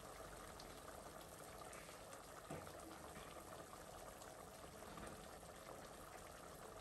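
Faint, steady sizzle of beaten egg cooking in a frying pan, with one soft tap about two and a half seconds in.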